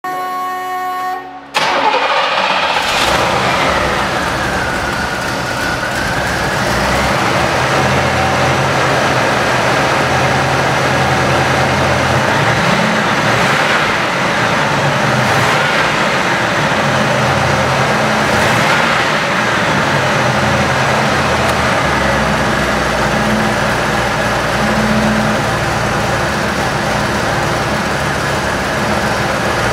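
Oldsmobile 442's V8 engine starting: it catches about a second and a half in, then idles, with the throttle blipped several times.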